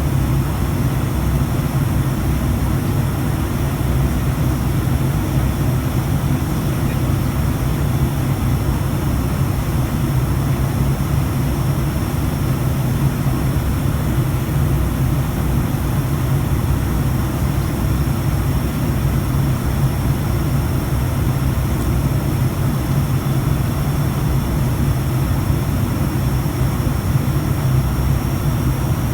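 ATR 72 turboprop engines and propellers running with a steady low drone that does not change.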